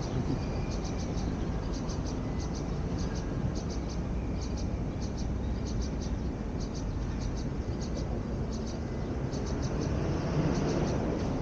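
Steady low rumble of road traffic. Short high chirps repeat throughout in quick groups of three or four.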